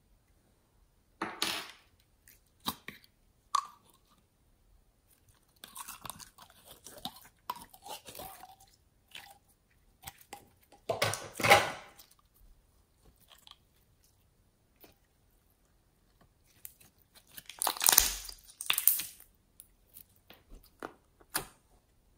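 Slime being squeezed and pressed by hand, making sticky crackling and popping squishes in irregular bursts, loudest about halfway through and again near the end.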